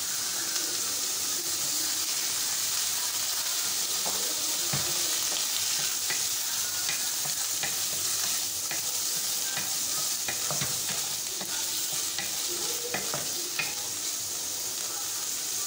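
Chicken pieces, chopped onion and sliced mushrooms frying and sizzling in oil in a black non-stick kadai, stirred with a wooden spatula that scrapes and clicks against the pan from about six seconds in.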